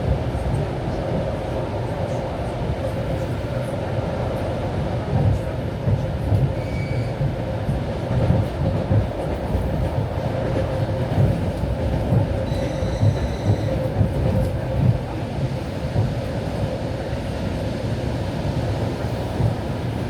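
Suburban electric train running at speed, heard from inside the carriage: a steady rumble with irregular low thumps from the wheels and a steady hum. Brief faint high squeals come about 7 and 13 seconds in.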